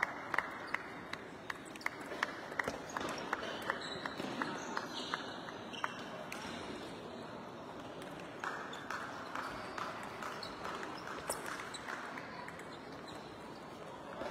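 Table tennis ball clicking off the bats and the table in quick rallies, a sharp tick every third of a second or so, pausing for a couple of seconds in the middle before the clicks start again.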